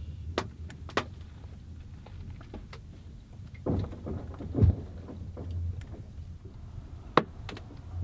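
Frozen lake ice in spring thaw cracking and popping: a scatter of sharp cracks, the loudest about four and a half seconds in with a deeper boom, and another sharp crack near the end.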